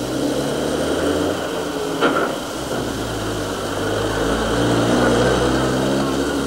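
A motor vehicle's engine drawing near, loudest about five seconds in, then easing off, with one short sharp click about two seconds in.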